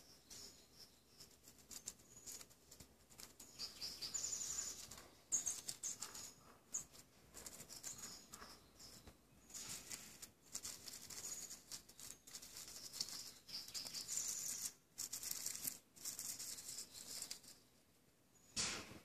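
Faint, intermittent scratching and rustling of a small rodent digging and rummaging in dry dirt among sunflower seeds, with many short crackly clicks. The sounds die away shortly before the end.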